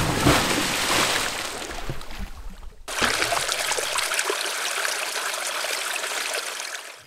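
Splashing, rushing water, with a splash at the start. About three seconds in it cuts abruptly to a second steady stretch of running water, which fades out near the end.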